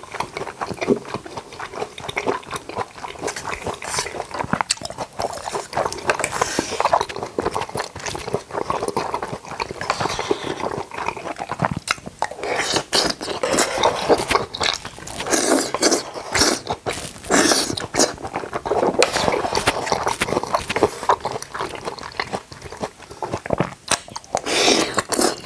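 Close-miked chewing and wet mouth sounds of someone eating jackfruit, with many irregular small clicks.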